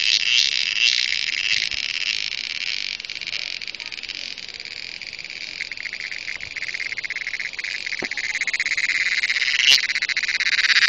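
Cricket (cheeveed) calling: a loud, continuous, high-pitched pulsing buzz that eases off toward the middle and swells again near the end.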